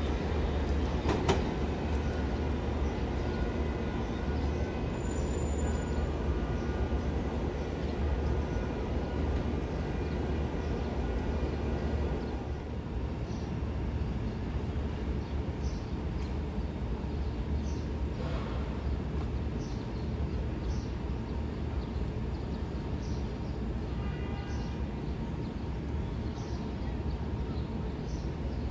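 New York City subway train running through the station: a steady rumble with a faint whine, a sharp click about a second in, and a slight easing about twelve seconds in.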